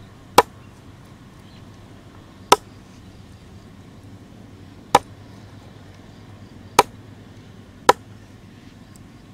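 Large kitchen knife chopping through frog meat and bone onto a round wooden chopping block: five sharp, separate chops a second or two apart.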